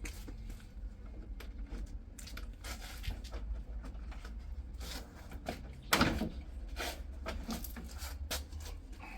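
Irregular clicks, knocks and scraping of parts being handled during a car strip-down, over a low steady rumble, with one louder knock about six seconds in.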